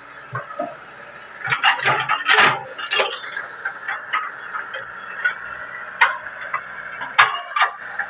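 Hitachi 110 excavator working a ditch: the engine runs steadily under a high steady hum, with irregular knocks and clanks from the machine as it digs.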